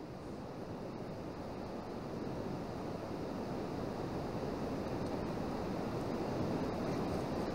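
Steady rushing of a swollen mountain river running high and fast, slowly growing louder.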